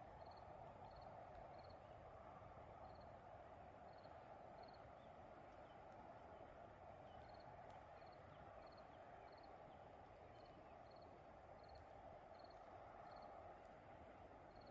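Faint night ambience: an insect, likely a cricket, chirping in short high chirps about every two-thirds of a second with occasional pauses, over a steady low hiss.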